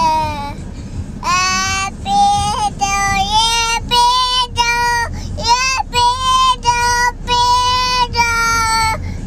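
A toddler girl singing in a high voice: a string of about a dozen short, held notes, with a brief break about five seconds in.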